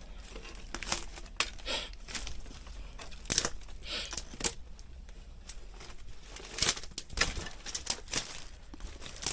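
Footsteps crunching and rustling on dry debris and undergrowth, with irregular crackles and snaps.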